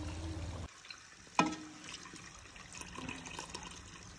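Ghee cooking down from butter in an aluminium pot, faintly bubbling and crackling as it is stirred and ladled. A single sharp metal clink of the steel ladle against the pot comes about a second and a half in.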